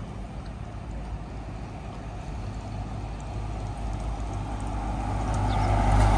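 A vehicle's low, steady rumble that grows louder over the last couple of seconds.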